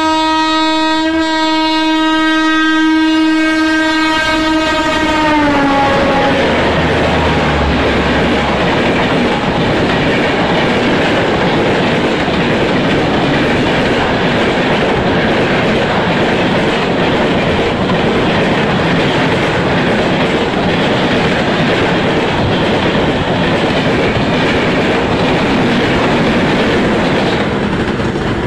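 A train horn holds one long blast as an express train approaches, and its pitch drops as the locomotive passes about five seconds in. Then the coaches run by at speed in a steady loud rush of wheel and rail noise, which fades near the end.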